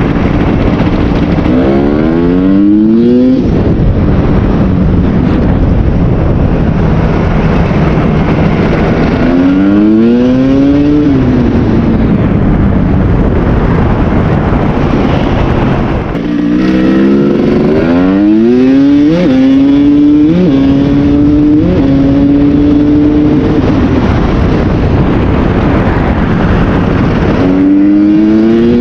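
2001 Kawasaki KX250 two-stroke dirt bike fitted with a different exhaust, being ridden: the engine revs up in rising pulls through the gears four times, with steadier running in between.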